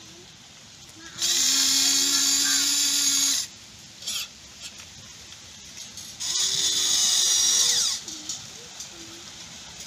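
Electric motors of a Huina remote-control toy excavator whining twice, about two seconds each, as the boom and bucket move.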